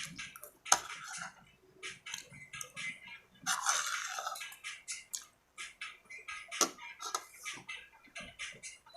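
Close-up eating sounds: wet chewing and lip-smacking in quick irregular clicks, with a longer rasping stretch about three and a half seconds in.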